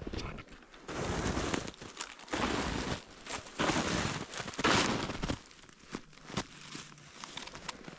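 Crunching footsteps: four slow steps in the first half, then a few light clicks and ticks.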